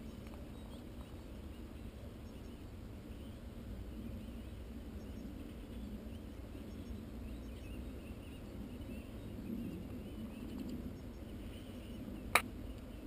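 Quiet outdoor background with a steady low rumble of wind and handling noise on a shoulder-mounted camera's microphone, broken by one sharp click near the end.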